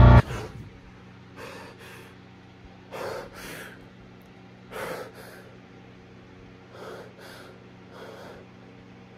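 A loud music swell cuts off suddenly just after the start. Then a young man breathes heavily close to the microphone: about five quick in-and-out breath pairs a second or two apart, over a faint steady hum.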